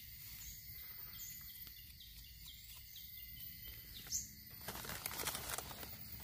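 Quiet outdoor ambience with faint, scattered high bird chirps, one a little louder about four seconds in. Shortly after, dry leaf litter, grass and twigs rustle and crackle briefly as a hand with a knife reaches in around a mushroom to cut it.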